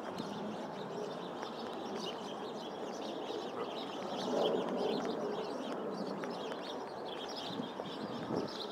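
Many small birds chirping and chattering without a break, over a steady background of street noise.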